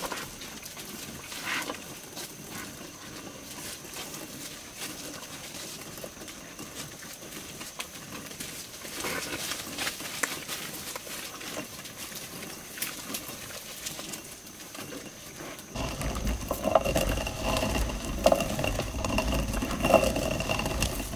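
Pigs foraging in the undergrowth, with soft rustles, snuffling and chewing. About sixteen seconds in, a hand-turned stone mill takes over, louder, with a low scraping grind of stone on stone.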